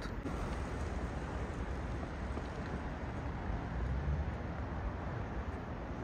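Steady outdoor background noise with a low rumble, as of wind and distant traffic.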